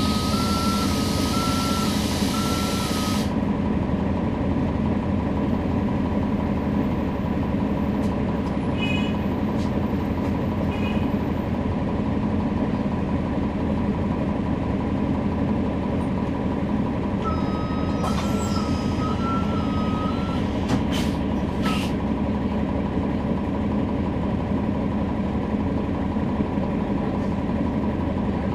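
Interior of a NABI 40-SFW transit bus from the rear: the Cummins ISL9 diesel and ZF Ecolife six-speed automatic transmission running steadily, the transmission making most of the noise. An electronic warning tone alternating between two pitches sounds twice, for about three seconds each time, the first with a hiss of air.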